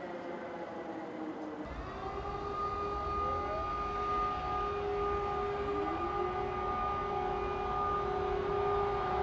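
Civil-defence air-raid sirens wailing. First comes a wail falling in pitch. After an abrupt cut, a steady wail of several tones sounds over a low rumble, and twice another siren rises in pitch to join it.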